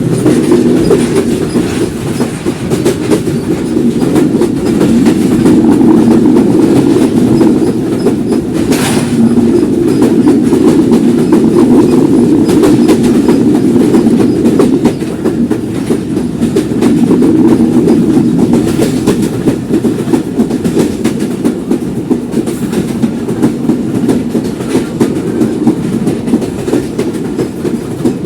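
Passenger train wheels running over the track: a steady low rumble with fine rhythmic clatter from the rail joints, and one sharper clack about nine seconds in.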